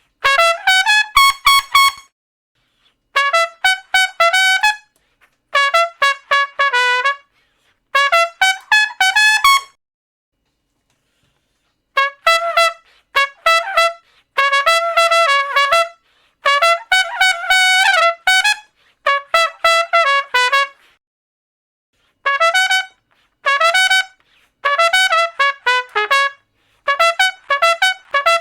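Solo trumpet playing short runs of quick, detached notes in separate phrases with brief silent pauses between them, one longer pause about ten seconds in.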